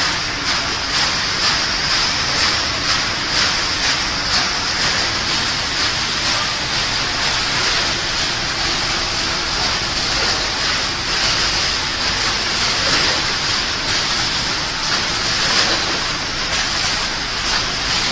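Snack-food production line machinery running: a steady, even din with a strong high hiss and no distinct strokes or changes.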